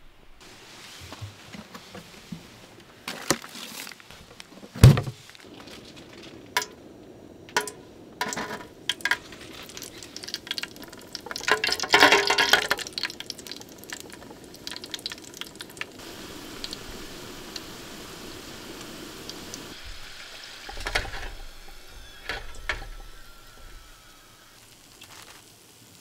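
Crinkle-cut french fries deep-frying in a small metal pot of oil. A sharp knock of metal cookware comes about five seconds in, among lighter clicks. About halfway through there is a burst of loud sizzling as the fries go into the hot oil, followed by a steady sizzle, with more clinks and knocks from the wire fryer basket near the end.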